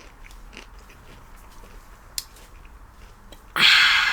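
Quiet eating sounds, small clicks of biting and chewing, then about three and a half seconds in a sudden loud breathy rush of noise lasting about a second.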